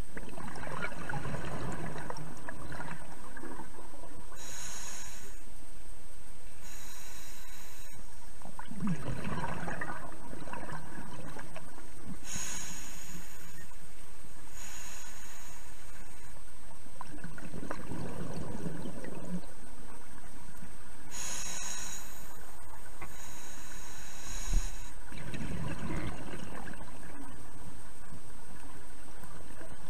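A scuba diver breathing underwater through a regulator. Four gurgling bursts of exhaled bubbles come about every eight seconds, with shorter hissing inhalations between them.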